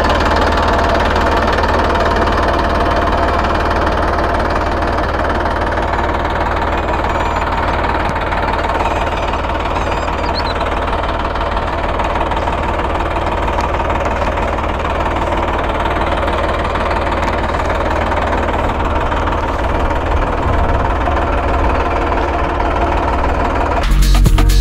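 New Holland 3230 tractor's three-cylinder diesel engine running steadily as the tractor is driven slowly along. Music starts just before the end.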